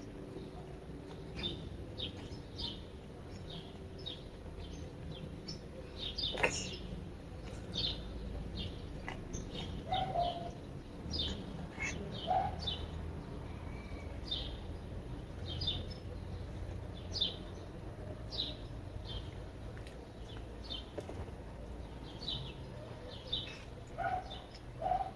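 Wild birds chirping: short, high calls at irregular intervals, about one or two a second, with a few lower calls between them. A sharp click about six seconds in, over a steady low rumble.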